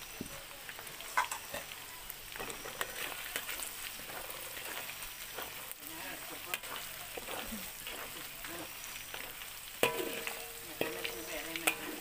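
Sliced white chillies and aromatics sizzling in hot wild-boar lard in a wok, stirred with a metal spatula that scrapes and knocks against the pan now and then.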